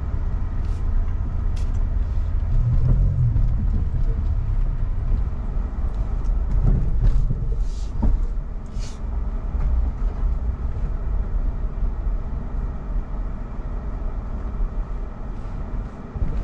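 Low rumble inside the cab of an electric Rivian R1T pickup rolling slowly over a rough dirt trail: tyres and suspension working over the bumps, with a few sharp knocks and rattles.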